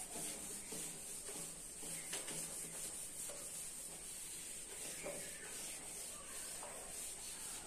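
Cloth rubbing across a whiteboard, wiping off marker writing in repeated faint strokes.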